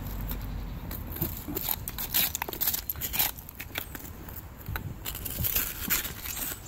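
Irregular clicks, knocks and scrapes of hard objects being moved and handled, denser a couple of seconds in and again near the end.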